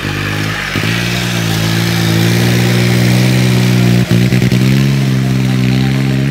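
Fordson Dexta tractor's three-cylinder diesel engine running under load as it pulls a tined cultivator through the soil. The engine note rises a little in the first second or two, then holds steady, with a brief clatter about four seconds in.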